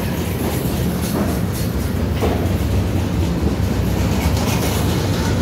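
Freight train cars rolling past: a steady rumble of steel wheels on the rails, with occasional clacks over the rail joints.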